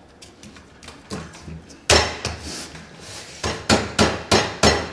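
A flat hand slapping grip tape down onto a scooter deck clamped in a vise, pressing the tape onto the metal: one hard slap about two seconds in, then about five quick slaps near the end, roughly three a second.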